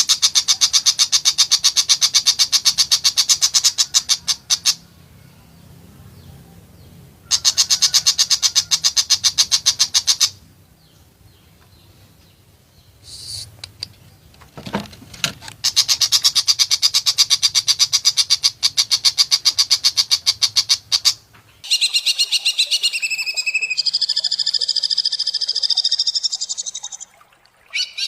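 Green leafbird (cucak hijau) singing its harsh rapid-fire 'tembakan' song: rattling strings of fast, evenly repeated rough notes in three bursts of several seconds, with short pauses between. Near the end comes a different, higher and buzzier phrase.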